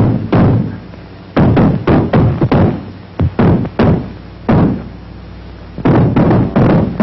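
Feet stamping hard on a wooden floor overhead: runs of heavy thuds with short pauses between them, about a dozen in all.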